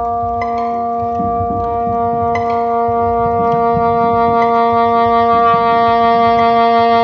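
Soprano saxophone and chamber orchestra playing a slow contemporary concerto passage: a held chord of sustained tones that swells gradually. Struck, ringing notes come in about half a second and two and a half seconds in, and a lower held note joins about a second in.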